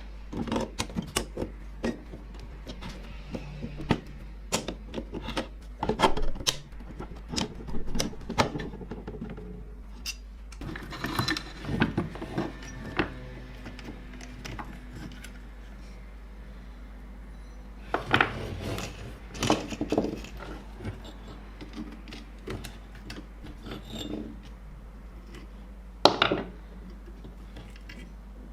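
Hand work on the parts of a vintage hand drill: a few stretches of rubbing and scraping between scattered sharp clicks and knocks, with the loudest knock near the end.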